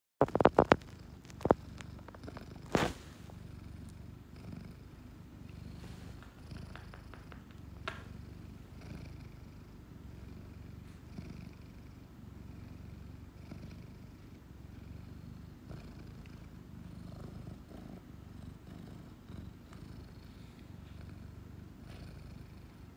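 Domestic cat purring steadily, a low continuous rumble. A few sharp knocks in the first three seconds are louder than the purr.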